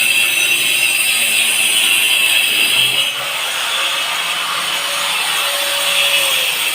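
Hand pump being worked, a steady rasping mechanical noise from the pump as it brings up powdery sediment; it eases a little about three seconds in.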